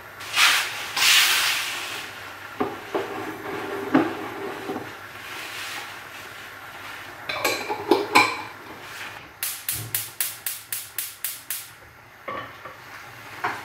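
Kitchen cooking sounds at a gas hob: a glass jar of tomato sauce and pans being handled, with a short hiss early on, scattered knocks and clatters, and a quick even run of about ten strokes near the end.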